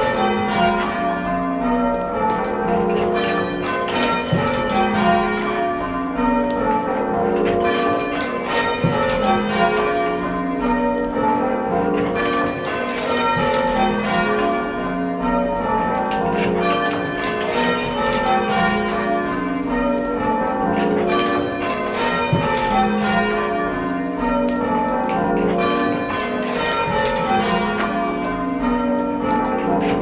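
Church tower bells rung full-circle on ropes in change ringing, striking one after another in steady, repeating descending sequences, heard from the ringing chamber below the bells.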